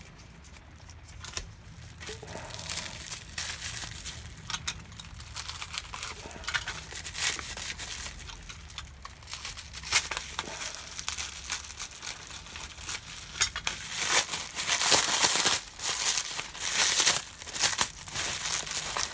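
Packaging being unwrapped by hand from a set of custom lock picks: irregular crinkling and crackling with some tearing, getting louder and busier near the end.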